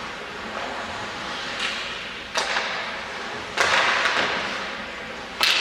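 Ice hockey sticks and puck cracking against each other and the boards: several sharp cracks, each ringing on in the rink's echo, over a steady hiss of arena noise.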